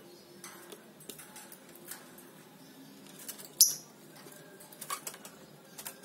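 A lovebird fluttering and clambering on a wire cage, with scattered light clicks on the bars and one loud, sharp snap a little past halfway.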